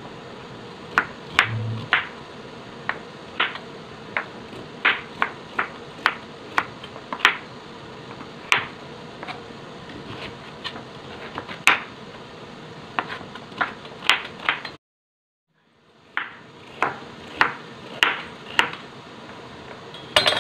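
Kitchen knife chopping sweet potato into cubes on a plastic cutting board: sharp, irregular knocks of the blade meeting the board, about one or two a second. The sound cuts out completely for about a second two-thirds of the way through, then the chopping goes on.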